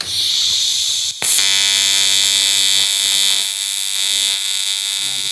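AC TIG welding arc on aluminium at 40 amps from an EWM welder: a hiss at first, a short break about a second in, then a steady buzz. The 40 amps proves too little power, melting the corners without joining them.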